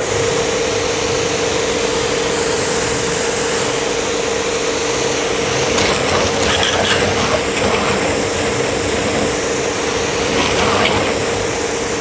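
Btali 2200HPW commercial high-pressure washer running with the trigger held: the induction motor and pump hum steadily under the loud hiss of the water jet from a 0-degree nozzle. The hiss grows rougher about halfway through.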